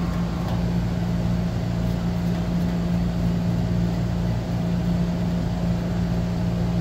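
Motor-driven wire drum of a fast wire (molybdenum wire) EDM running steadily, rolling the wire spool forward, a constant machine hum with a faint higher tone over it.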